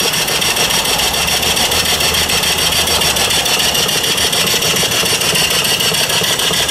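Single-cylinder vertical live steam engine, 2.75-inch bore by 3-inch stroke, running steadily in reverse, its steam exhaust hissing in rapid, even puffs.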